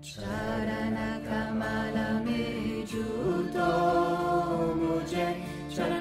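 Background music of chanting voices holding long, steady notes over a low sustained tone.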